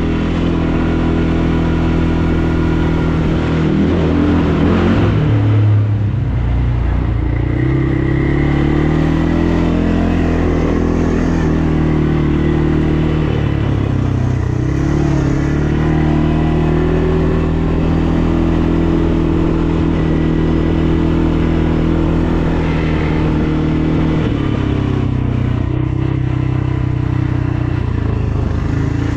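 ATV engine running while riding, its pitch falling and rising with the throttle, dropping about five seconds in and climbing again soon after.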